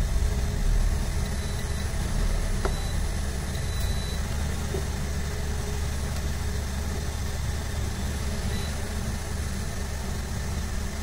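Steady low mechanical hum, even throughout.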